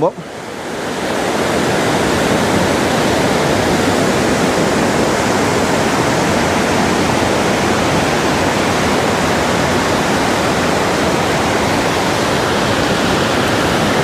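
Steady rush of a rocky waterfall and stream in strong flow, swelling up over the first second or so and then holding even.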